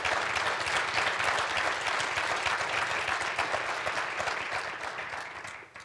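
Audience applauding, a steady spread of many hands clapping that thins out and fades away near the end.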